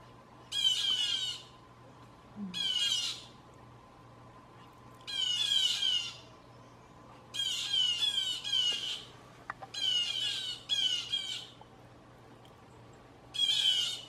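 Red-bellied woodpecker giving harsh, rolling churr calls, each under a second long, about eight of them with short pauses between, some coming in quick pairs.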